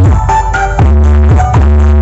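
Bass-heavy electronic dance music played very loud through a stacked outdoor sound system of planar and 'kuburan' (grave-shaped) subwoofer boxes, being tested. Deep held bass notes change about every second and a half, joined by quick pitch sweeps.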